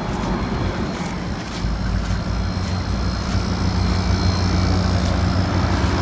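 Window air conditioner running: a steady low hum from the compressor and fan that grows louder about a second and a half in.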